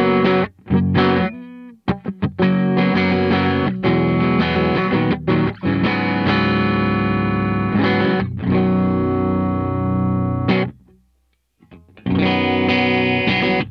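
Squier Paranormal Cabronita Baritone Telecaster with Fender-designed P90 pickups, played through a Walrus Audio ACS1 amp simulator: chords strummed and left to ring. The playing stops for about a second near eleven seconds in, then starts again.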